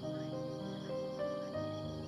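Soft background music: gentle held notes changing every half second or so, with a faint steady insect-like chirring high above it.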